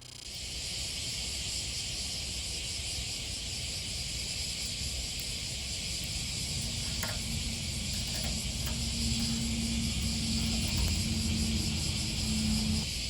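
Dense, steady chorus of insects such as crickets, over a low rumble. A low steady hum joins about halfway through and stops just before the end.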